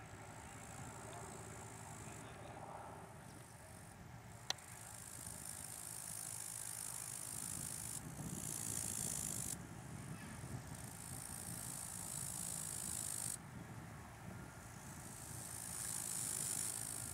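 Wind rushing on the microphone: a steady hiss that swells and drops off abruptly several times over a low rumble, with a single sharp click about four and a half seconds in.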